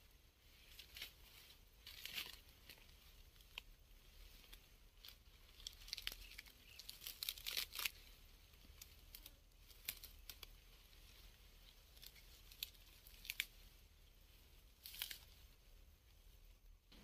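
Faint, scattered rustling and crackling of dry grass stems, in short irregular bursts throughout.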